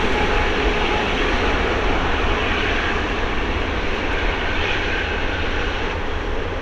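Airbus A380-841 on takeoff, its four Rolls-Royce Trent 970 turbofans giving a steady jet roar that slowly fades.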